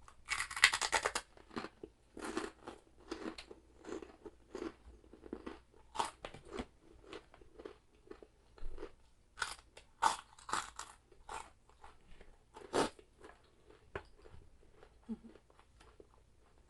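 Crunching and chewing of chicharabao, crisp fried carabao-skin cracklings: a dense crunching bite near the start, then a string of separate crunches as it is chewed.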